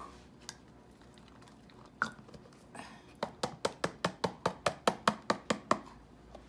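A small box of bouillon powder being tapped over a plastic blender jar to shake the powder out. One tap comes about two seconds in, then a quick run of about a dozen sharp taps, some five a second, for two and a half seconds.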